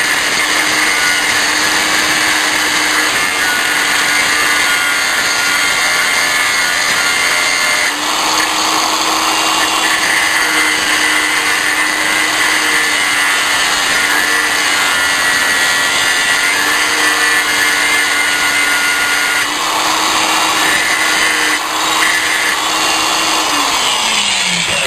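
A small high-speed power tool, running steadily and cutting into the housing of a car's dimmer switch. The grinding sound changes as the cut bites and eases a few times. Near the end the motor is switched off and spins down with a falling whine.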